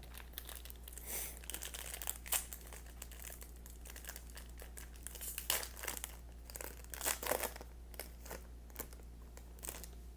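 Trading cards and their crinkly pack packaging being handled: irregular rustling and crinkling with scattered sharp snaps, loudest about two, five and seven seconds in.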